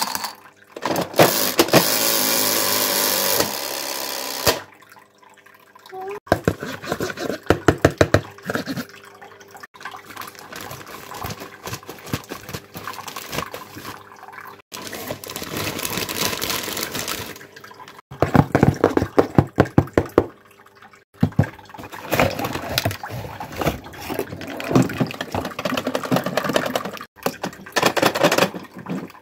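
Plastic parts of a Greedy Granny game toy clicking and clattering as they are handled, in quick runs of sharp clicks, along with a plastic wrapper rustling and crinkling. A steady hiss runs for a couple of seconds about a second in.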